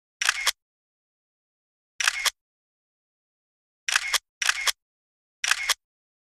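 Camera shutter sound effect, heard five times at uneven intervals, each a quick double click over dead silence.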